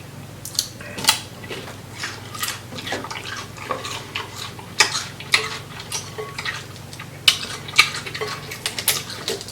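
Close-up eating of a sauced seafood boil: irregular clicks, cracks and wet squelches as shellfish and sauce are handled and eaten, with the sharpest clicks around five and seven to nine seconds in.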